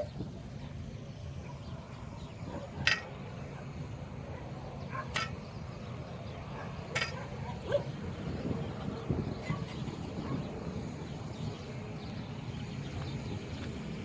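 Dogs giving three short, sharp barks a couple of seconds apart, over a steady low outdoor background.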